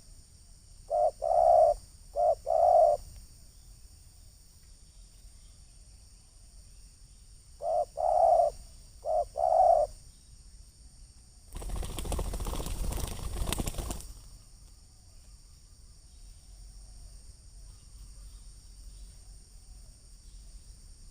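Spotted dove cooing: a phrase of three coos about a second in and another of four coos about eight seconds in. A few seconds later comes a rustling noise lasting about two and a half seconds.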